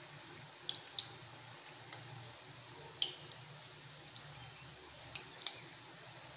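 Samosa rolls deep-frying in a kadhai of hot oil over a low flame: a faint, soft sizzle broken by scattered small pops and crackles from the bubbling oil.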